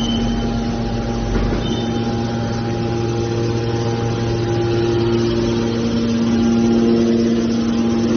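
Hydraulic metal baler's power unit running: a steady motor and pump hum with several held whining tones, one more joining a couple of seconds in.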